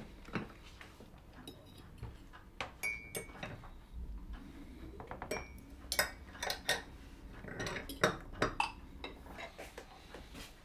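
Metal fork and knife clinking and scraping against a plate while eating, in irregular taps, a few of which ring briefly.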